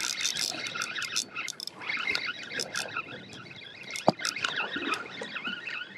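Shimano spinning reel being cranked in under the load of a hooked fish, its gears whirring with a steady run of rapid clicks, and one sharper click about four seconds in.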